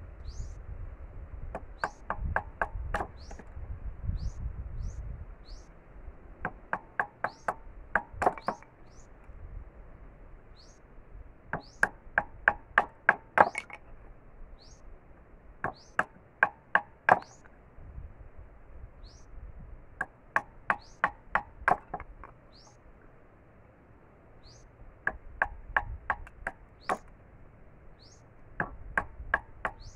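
Bolo knife chopping at a thin wooden stick, cutting it down into chopsticks and barbecue skewers. The sharp knocks come in quick runs of several strokes with short pauses between. A bird chirps repeatedly in the background.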